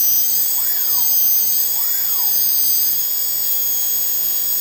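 Brushless multirotor motors spinning without propellers on a bench run-up, giving a high electric whine that wavers, with a tone rising and falling twice. One motor, No. 4, keeps stopping during the run-up.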